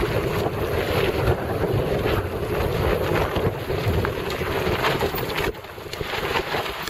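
Wind rushing over a bike-mounted microphone during a fast downhill run on a dirt trail, mixed with the rumble and rattle of the mountain bike over rough ground. The noise drops suddenly about five and a half seconds in.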